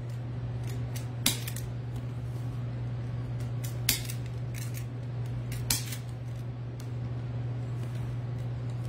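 Scissors snipping off the ends of burlap mesh: three sharp snips a second or two apart, with fainter snips between them, over a steady low hum.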